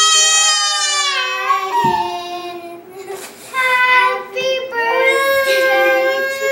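A toddler girl crying in long, drawn-out wails: one long wail, a short break, then more wails from about halfway through.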